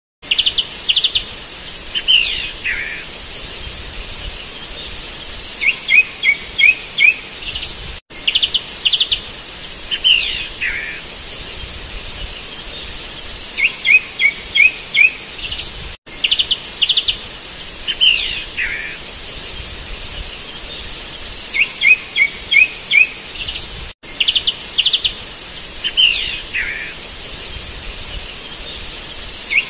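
Looped recording of birdsong over a steady outdoor hiss. Each 8-second pass holds a quick trill of chirps, a falling slurred call, a run of five or six short chirps and a rising whistle, and the loop restarts with a brief dropout about every 8 seconds.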